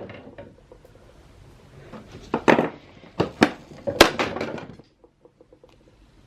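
Aged plastic housing of a Laerdal Heartstart 3000QR defibrillator cracking as it is pried open: several sharp snaps and cracks between about two and four and a half seconds in, then a few faint ticks. The plastic has gone brittle with age.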